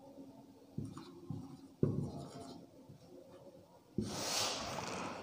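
Marker pen writing on a whiteboard: a few light taps and short strokes, then a longer, louder stroke about four seconds in.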